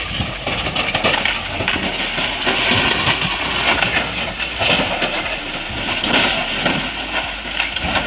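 A crawler bulldozer tumbling down a steep dirt slope, with loud continuous crashing and rumbling noise throughout.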